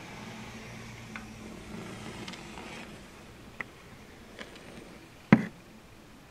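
Faint low hum with a few light ticks and one sharp click about five seconds in, from a camera being handled and moved.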